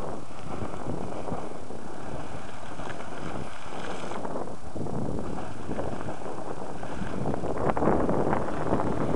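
Sawmill Geyser erupting: a steady rush of splashing, churning hot water, with wind buffeting the microphone.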